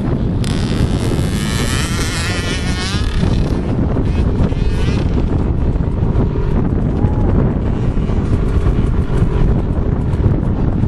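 Dirt bike engine revving up and down as the motocross bike rides off over the jumps, loudest in the first three seconds and then fading, under a heavy rumble of wind buffeting the microphone.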